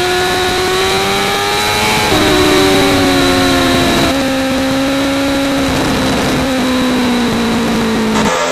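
Suzuki GSX-R 750's inline-four engine at high revs, heard from on board over wind rush. The pitch climbs, then falls sharply with an upshift about two seconds in and another about four seconds in. After that the revs sag slowly until the sound breaks off near the end.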